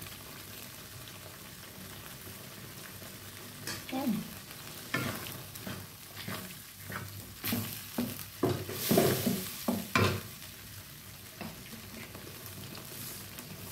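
A wooden spatula stirs and scrapes through a simmering coconut-milk and minced-pork sauce in a nonstick wok, over a steady sizzle. The scraping strokes come irregularly through the middle and are loudest about nine seconds in.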